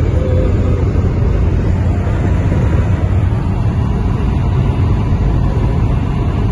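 Steady low rumble of tyre, road and engine noise inside a car's cabin travelling at motorway speed.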